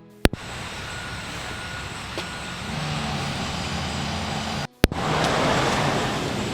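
A steady low mechanical hum over background noise. It breaks off twice, at the very start and again near the five-second mark, each time in a short dropout that ends in a sharp click where the recording is cut.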